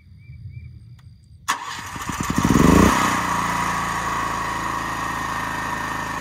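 Portable generator engine starting: it catches suddenly about a second and a half in, speeds up over the next second or so, then settles into steady running.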